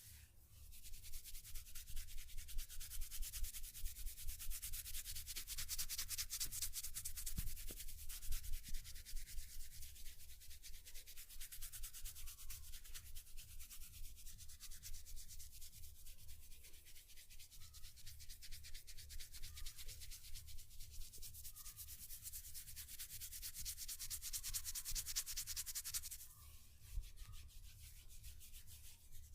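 Hair and scalp being rubbed briskly in a head massage: quick, even rubbing strokes, several a second, with a dry high rustle. It eases off near the end.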